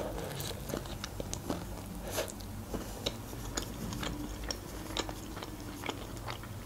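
A person biting into and chewing a slice of pizza: many small, irregular crunches and mouth clicks.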